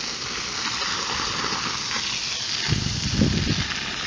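Garden hose spray nozzle jetting water into sandy soil around a buried PVC pipe, a steady hiss of spray washing the sand away to expose the pipe. A brief low rumble comes in about three seconds in.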